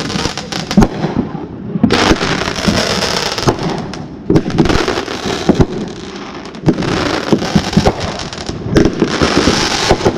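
Fireworks going off: a quick run of sharp bangs and pops over stretches of hissing crackle, with a short lull about two-thirds of the way through.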